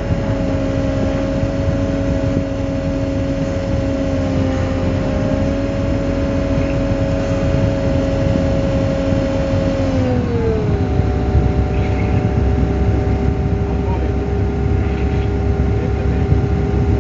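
Volvo EW160A wheeled excavator running steadily, its diesel engine and hydraulics giving a constant hum with a held whine. About ten seconds in the whine drops in pitch as the machine slows, and a lower rumble comes up.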